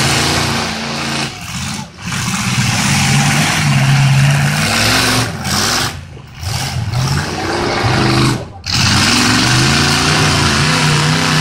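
Engines of several full-size demolition derby cars revving hard, their pitch rising and falling as they drive and push, over a loud steady noise.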